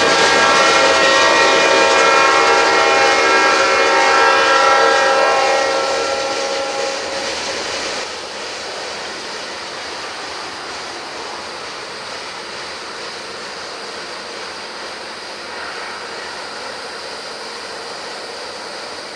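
Tail end of a freight train of tank cars rolling past and away on the rails, with a loud steady tone of many overtones over the rolling noise that fades out about six to seven seconds in. The sound then settles to a quieter steady rush as the train recedes.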